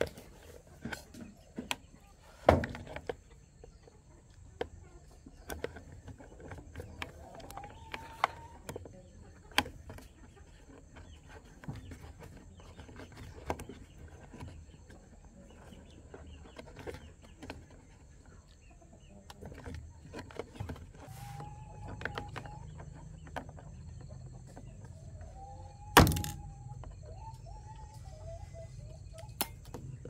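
Scattered clicks and taps of fingers handling the plastic parts and wire connectors inside a washing machine's control panel, with two sharper knocks, one a couple of seconds in and a louder one near the end. Chickens call in the background, with a rooster crowing a few times.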